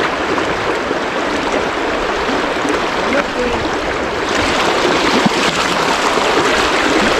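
River water rushing steadily, a loud even noise that gets a little brighter and louder about four seconds in.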